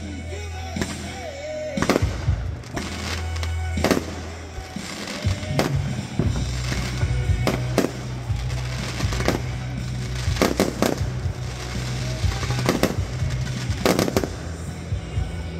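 Aerial firework shells bursting one after another in a finale barrage, more than a dozen sharp bangs at uneven intervals. Low music plays steadily underneath.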